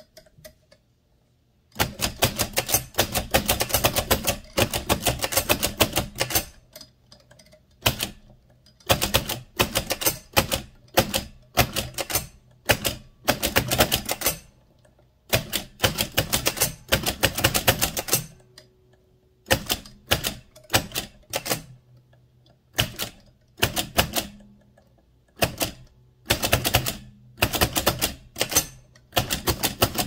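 1925 AEG Mignon 4 index typewriter being typed on: its type cylinder indexes and strikes the paper in rapid clattering runs of clicks, in bursts of a second or two with short pauses between them. The clatter starts about two seconds in.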